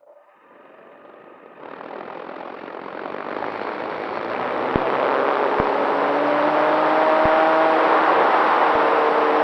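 Electric motor and propeller of a Dynam T-28 Trojan RC plane, heard from its onboard camera, growing steadily louder under a rush of air as the throttle comes up, with a few slowly gliding tones. A few sharp clicks come in the second half.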